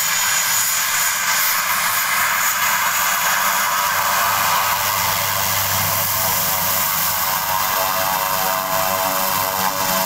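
Cessna 208 Grand Caravan's PT6A turboprop engine and propeller running as the aircraft taxis past, with a high turbine whine over the propeller noise.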